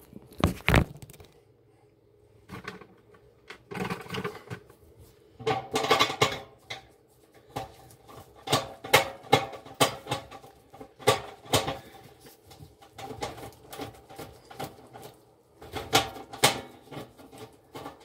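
Irregular knocks, clicks and clatter of objects being handled, coming in uneven bursts with short quiet gaps between.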